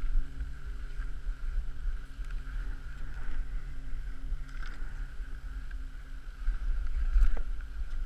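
Dog sled running along a snow trail: a steady hiss of the runners over the snow with wind buffeting the microphone, and a few light knocks as the sled jolts.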